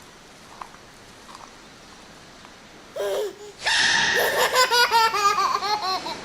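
A child laughing hard in rapid, high-pitched peals, breaking out about three and a half seconds in, just after a short sudden burst of sound. Before that there is only low background noise.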